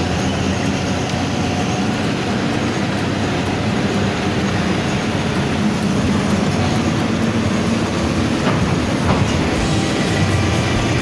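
Steady engine and road noise of a moving bus, heard from inside the passenger cabin, with a few faint clicks near the end.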